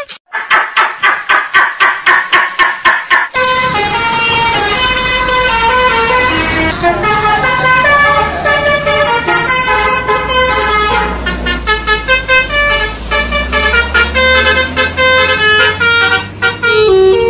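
Bus 'telolet' Basuri multi-tone horn playing a tune: a quick string of short toots for about three seconds, then a fast, changing run of notes.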